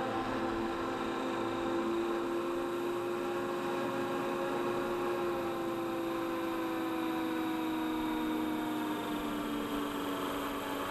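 Electric RC helicopter (Align T-Rex 500E) hovering: a steady whine from its motor, gears and spinning rotors. The pitch sags slightly over the last few seconds.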